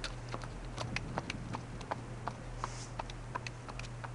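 Quarter horse's hooves clip-clopping on pavement as it walks, sharp strikes several times a second. It is a good, solid 1-2 beat from both freshly trimmed hind feet, the sign of even, balanced landings.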